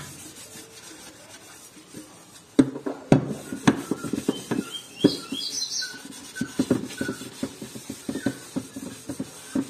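A soapy sponge scrubbing the wet outside of an aluminium pressure cooker: rapid rubbing strokes and small knocks of the pot, starting a couple of seconds in, with a few short high squeaks about halfway.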